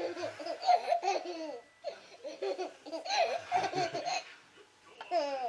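Baby laughing hard in bouts of quick repeated bursts, with short pauses between the bouts: delighted laughter at being lifted and played with.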